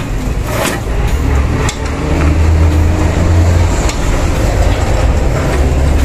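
A loud low rumble, with a few sharp clicks and knocks as the folding wire basket on an electric tricycle is folded back down.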